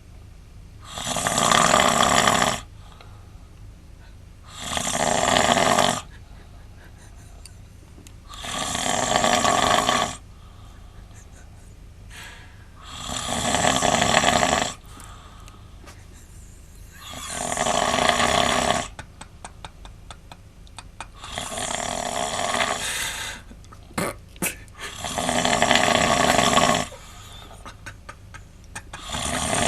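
A man snoring loudly and regularly, with one long, rasping snore about every four seconds, eight in all.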